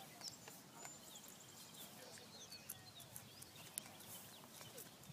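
Near silence: faint open-air ambience with scattered soft clicks and a few faint, high chirps, including a brief trill about a second in.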